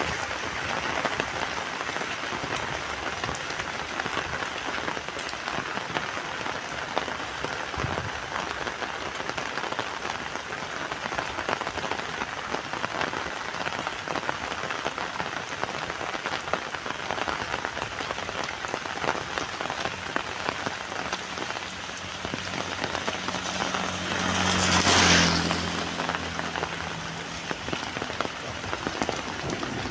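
Heavy rain falling steadily. About three-quarters of the way through, a low steady hum and a louder hiss swell up and fade away over a few seconds.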